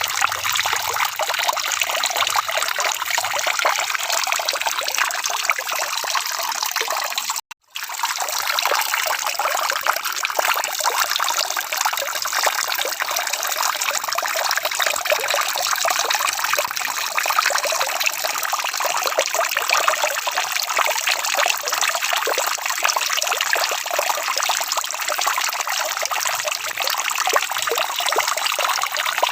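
Steady rain: an even hiss of falling and trickling water. It cuts out completely for a moment about seven and a half seconds in.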